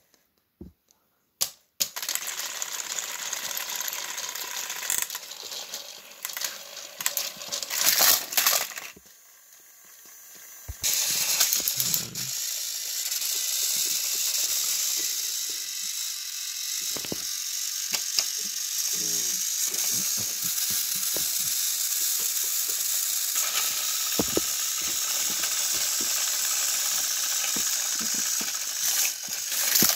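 Battery-powered Thomas & Friends toy train motors whirring, with their gears rattling, as the engines run on plastic track. The whirring starts about two seconds in, drops away for a couple of seconds a third of the way through, then runs steadily with a few light knocks.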